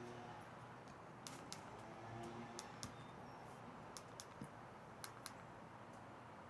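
Faint, irregular small clicks and taps of parts and tools being handled during assembly, about ten in all, over a low steady hum.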